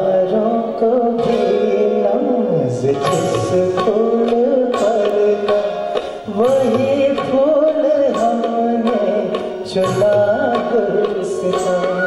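Male singer singing a Hindi film song live into a microphone, with band accompaniment and a steady percussion beat.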